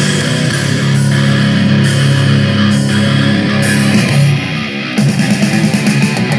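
Heavy rock music with electric guitar and strong bass, played loudly through a homemade mini 12V stereo amplifier kit driving a Sony speaker set with subwoofer. The level dips briefly about five seconds in, then the music carries on.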